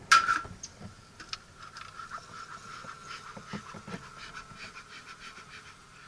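A sharp clatter of wooden hive parts at the start, then honeybees humming steadily around the open hive, with small clicks and scrapes as the hive is worked.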